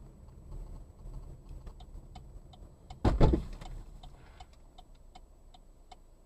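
Car interior on the move: a turn-signal indicator ticking steadily about three times a second over low road rumble, with one brief loud thump about three seconds in.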